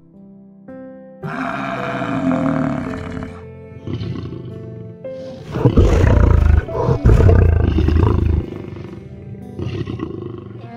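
A lion roars in deep, pulsing bursts for about three seconds, starting about five and a half seconds in, over steady background music.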